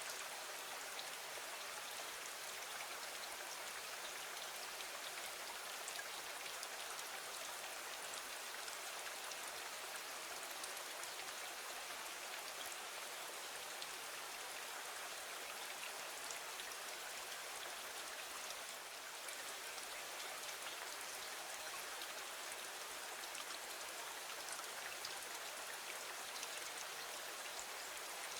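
Steady rain falling, an even wash of water noise sprinkled with many small drop ticks.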